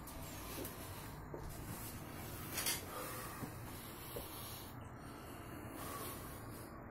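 Low steady background noise with soft rustling as a hand-held phone camera is moved, and a brief louder rustle about two and a half seconds in.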